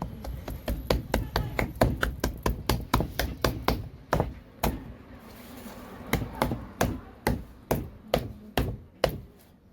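A quick run of sharp knocks or taps, about four a second for the first four seconds, then slower and more spaced out, stopping shortly before the end.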